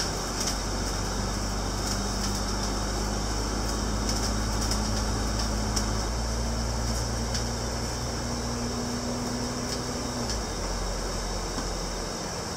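Double-decker bus interior on the move: a steady low engine hum over tyre and road noise, with a few faint clicks and rattles. The engine note steps up about six seconds in and eases off just after ten seconds.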